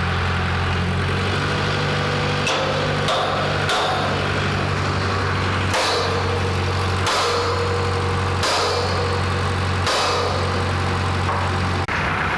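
Steady low machine hum with about seven short, sharp metal strikes, irregularly spaced and more evenly every second and a half or so in the second half, during fitting and tack welding of steel plates.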